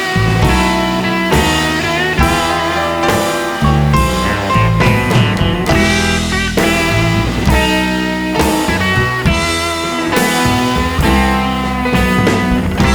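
Rock-style background music with electric guitar and drums.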